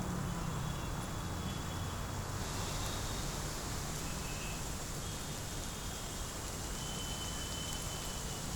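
Steady street ambience: a constant low rumble under an even hiss, with faint thin high tones coming and going. The hiss grows brighter a couple of seconds in.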